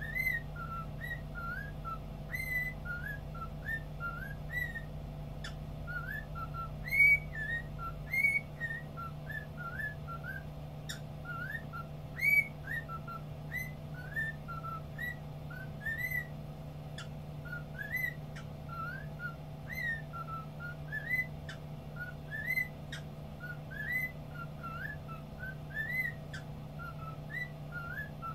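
Cockatiel whistling: short rising whistled notes, about three a second, in a phrase it repeats over and over.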